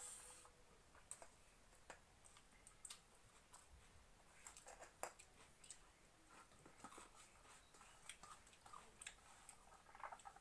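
Faint sounds of a person eating rice by hand: quiet chewing and scattered small clicks of fingers and rice against a steel plate.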